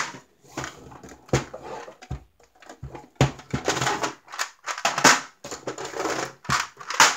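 Plastic bubble packaging crinkling and rustling as it is handled, with irregular sharp clicks and knocks of plastic storage cases on a tabletop.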